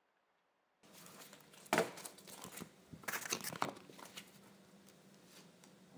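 Plastic clear file folders being handled and moved against one another, crinkling and rustling with a few sharp clicks, loudest about two seconds in and again around three seconds in.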